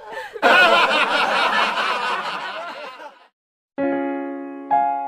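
A crowd laughing, like a laugh track, which breaks off sharply; after a short silence, two piano chords are struck about a second apart, each ringing and fading.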